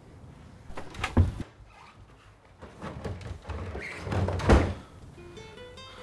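A dull thump about a second in and a louder door thud about four and a half seconds in, then plucked guitar music starts near the end.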